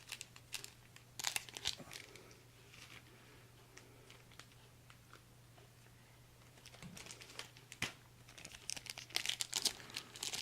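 Foil booster-pack wrapper crinkling and tearing as the pack is handled and opened, in short bursts about a second in and again near the end, with a quieter stretch between.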